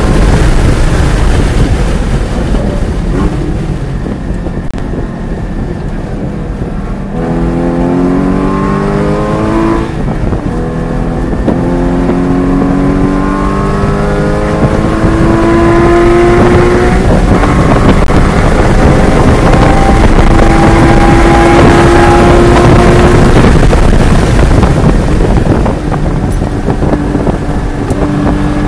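Porsche 981 Cayman GT4's flat-six engine heard from inside the cabin at speed on a race track. It goes quieter off the throttle under braking for a few seconds, then accelerates hard with the revs climbing and dropping in pitch at an upshift, and eases off again near the end. Steady tyre and wind noise runs underneath.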